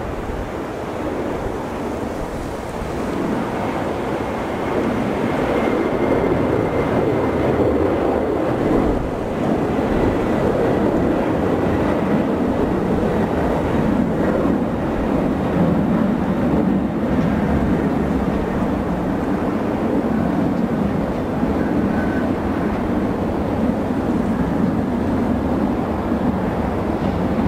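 Boeing 747-400 climbing out after takeoff, its four General Electric CF6-80C2 turbofans at takeoff thrust: a steady deep jet roar that swells over the first few seconds and then holds, with a faint high whine early on.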